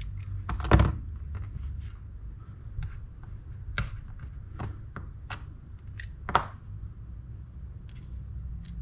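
Scattered light clicks and taps of small metal spinning-reel parts and a small screwdriver being handled during reassembly, about eight in all, the loudest a double click near the start. A low steady hum runs underneath.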